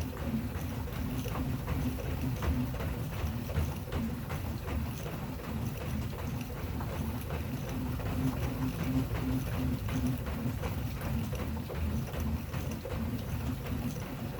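AssaultRunner Elite curved manual treadmill creaking and thudding in a steady rhythm, about two strides a second, as it is run or walked on.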